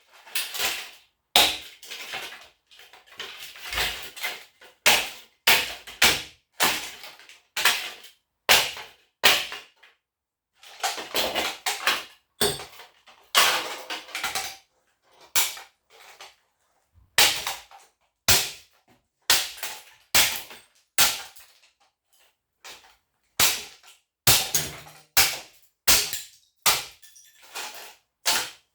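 Hatchet repeatedly chopping into a scrap electric motor's hard casing: a long run of sharp strikes, roughly one every half second to a second, with a couple of short pauses. The casing is tough and takes many blows before it breaks open.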